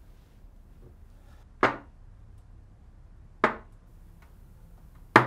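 Three sharp knocks, evenly spaced a little under two seconds apart, of small make-up pots being set down hard on a dressing table.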